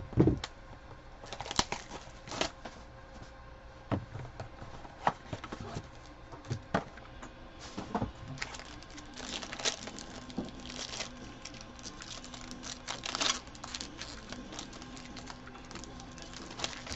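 A sealed box of trading cards being opened by hand: a wrapper crinkling and tearing, with scattered clicks and rustles of card stock. The crinkling is busiest in the middle stretch.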